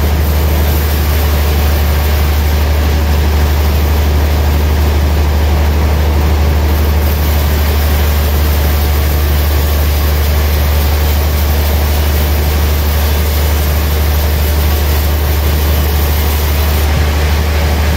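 Large band sawmill running as it saws through a gayam tree log: a loud, even sound with a strong low hum beneath a steady hiss.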